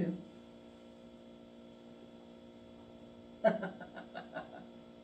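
Steady electrical mains hum made of many steady tones. A short burst of a person's voice breaks in about three and a half seconds in.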